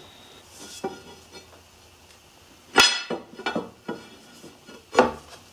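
Metal parts being handled and knocked together: a few light clinks, then a sharp clank a little under three seconds in and another about five seconds in.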